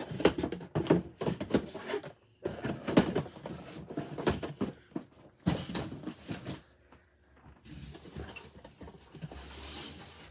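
Boxed collectible figures and their packaging being handled: irregular rustling, taps and knocks of cardboard and plastic, with a softer sliding rustle near the end.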